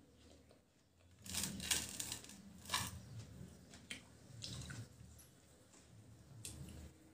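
Juicy watermelon being bitten and chewed close to the microphone: wet, squishy mouth sounds in several short bursts, loudest between about one and three seconds in, then fainter ones.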